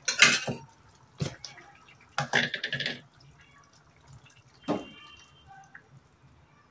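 Cashew paste being poured into a pot of simmering curry gravy, with wet splashes and plops in a few short bursts, the loudest right at the start.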